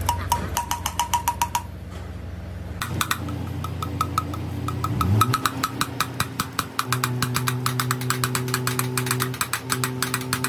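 Machine-shop electric motor running with a rapid, even ticking. About halfway through, a motor spins up with a rising whine and settles into a steady hum.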